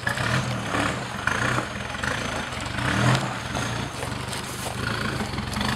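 Engine of a lifted 4x4 pickup working at low speed as the truck crawls over rocks up a steep rut, its note swelling in short blips of throttle about three times.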